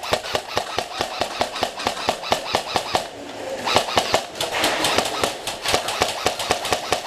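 Airsoft guns firing in rapid automatic bursts, a quick run of sharp snapping shots. One long burst breaks off about three seconds in, and firing picks up again a moment later.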